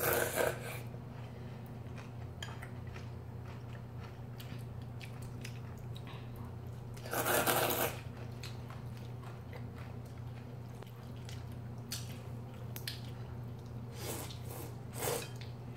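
People slurping and chewing instant ramen noodles. The loudest slurp comes about seven seconds in, with more slurps near the end, over a steady low hum.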